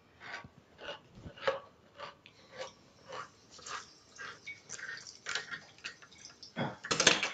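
A string of light, irregular clicks and taps from hands working at a kitchen counter during food preparation, with a louder rustle near the end.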